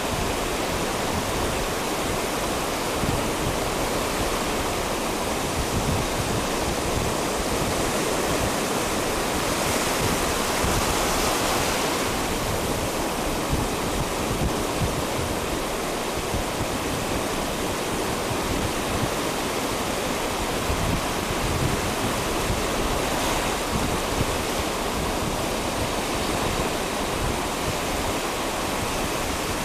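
Ocean surf washing up the beach as the tide comes in: a steady rush that swells a little about ten seconds in.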